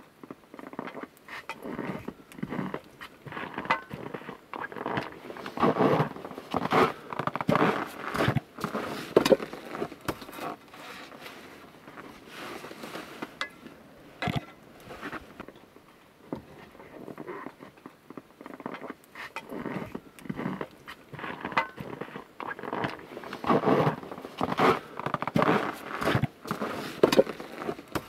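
Wood fire crackling and popping with irregular snaps, thickest in two spells of a few seconds each.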